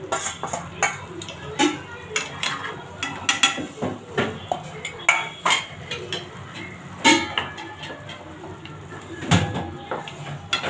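Kitchen utensil noise: a spoon clinking and scraping against a steel bowl and a cooking pan as stuffing is emptied out, in scattered short clicks and knocks, with louder knocks about seven seconds in and near the end.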